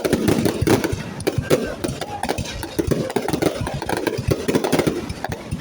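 Fireworks going off in a dense run of quick pops and crackles, with crowd chatter underneath.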